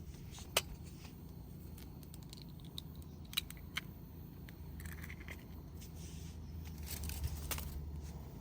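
A few sharp clicks and light handling noises, the loudest about half a second in, over a steady low rumble.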